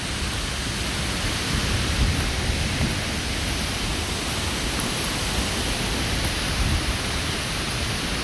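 Skógafoss waterfall: a steady, loud rush of falling water heard from close by.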